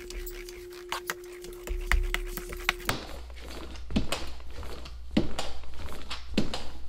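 Laminate being pressed onto a countertop: light clicks and rubbing from a hand roller, over a steady hum that stops about three seconds in. Then come three dull knocks about a second apart, like a rubber mallet tapping the laminate edge down.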